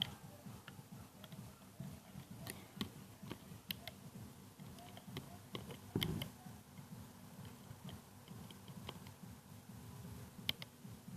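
Faint, scattered clicks and taps of a hook working rubber bands on a bracelet loom, with one louder bump about six seconds in.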